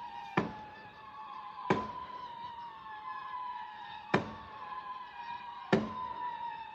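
Fireworks exploding: four sharp bangs, irregularly spaced, each with a short echoing tail. A steady, slightly wavering high tone runs underneath throughout.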